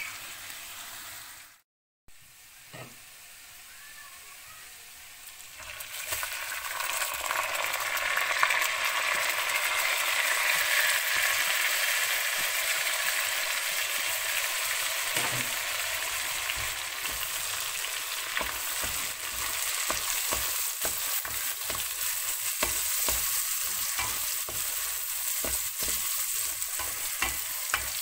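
Minced meat frying in oil in a pan: a steady sizzle with lots of small crackles. The sound cuts out for a moment near the start, then grows louder about six seconds in.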